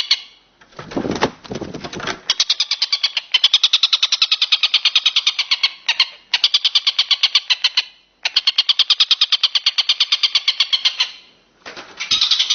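Tengkek buto cicada and walang kecek katydid calling: fast, even trains of high-pitched pulses that break off and start again several times. A brief low rumble sounds about a second in.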